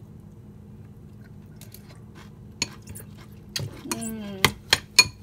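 A utensil stirring chopped salad in a bowl, clicking and clinking sharply against the bowl several times in the second half, over a steady low hum.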